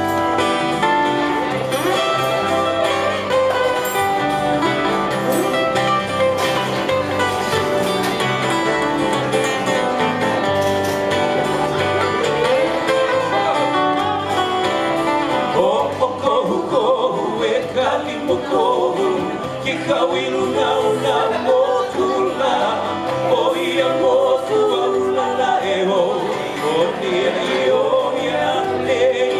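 Live acoustic band: acoustic guitars and bass guitar playing a song, with a man's voice singing over them from about halfway through.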